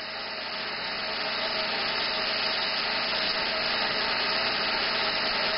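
Airbrush spraying paint, a steady hiss of air that swells slightly as it goes on.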